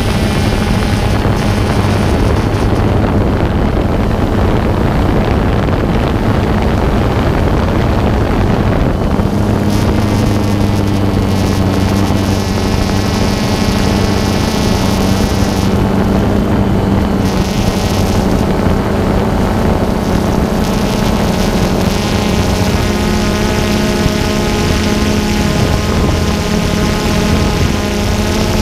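Multirotor drone's motors and propellers whirring steadily, heard through the camera riding on it: a low hum with higher tones that shift slightly in pitch as the drone flies.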